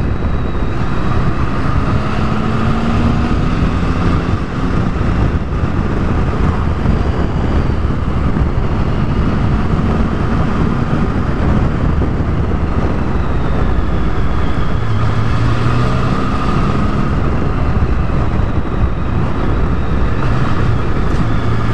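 Triumph Tiger 1050's three-cylinder engine running under way, its note rising and falling a little as it rides through bends, under a steady rush of road and wind noise.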